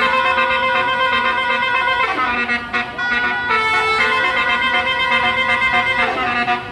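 Indonesian 'telolet' bus horn, a set of multi-tone horns playing a tune as held chords that step from one pitch to another, with a siren-like swoop about two seconds in and another near the end.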